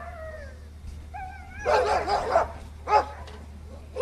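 Tethered sled dog whining and barking as a polar bear closes in: a falling whine at the start, a wavering whine about a second in, then short barks. A steady low hum runs underneath.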